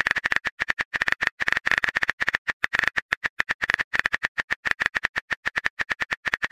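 Texting-app typing sound effect: rapid, even key-tap clicks, about eight to ten a second, as a message is typed out.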